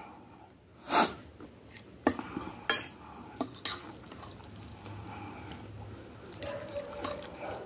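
Metal fork clinking and scraping against a glass plate while stirring and lifting instant noodles, with several sharp clinks about two to four seconds in. A short, louder noisy burst comes about a second in.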